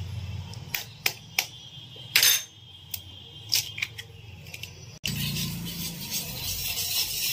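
Eggs tapped and cracked against the rim of a steel bowl, a series of short, sharp clicks and shell cracks. About five seconds in, a wire whisk starts stirring the eggs into wet spice paste in the steel bowl, a steady scraping.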